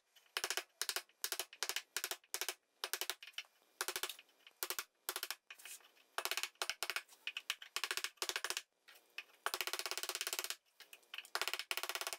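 Homemade gouge, a filed steel washer in a wooden handle, scraping and cutting into a softwood 2x4: short scraping strokes a few times a second in bursts, with one longer scrape of about a second after the middle. This is the bowl of a spoon being hollowed out.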